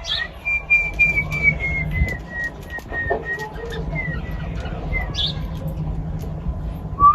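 Male cockatiel whistling its song: a run of short, evenly spaced whistled notes that slowly fall in pitch, then a lower whistled phrase starting near the end.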